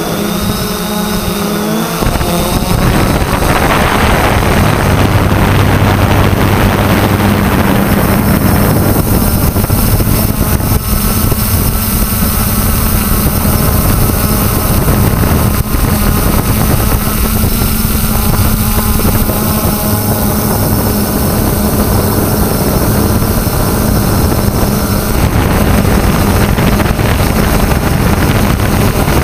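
3DR Solo quadcopter's electric motors and propellers droning steadily in flight, heard from the camera mounted on the drone, the hum shifting slightly in pitch now and then. Wind buffets the microphone, with a rush of wind noise a few seconds in.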